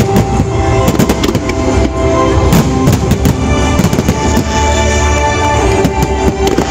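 Aerial fireworks going off in an irregular run of sharp bangs and crackles, over music playing throughout.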